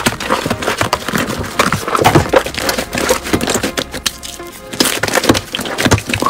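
Glossy red slime being pulled, stretched and folded by hand, giving a dense run of rapid crackling and popping clicks, over background music.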